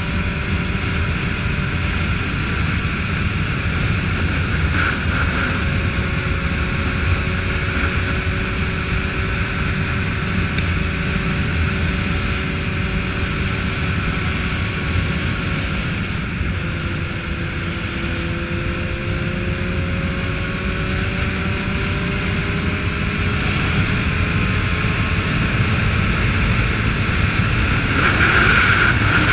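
Motorcycle engine running steadily at cruising speed, with wind rushing over the microphone. The engine note sags slowly, falls away about halfway through, then climbs gradually again. The rushing grows louder near the end.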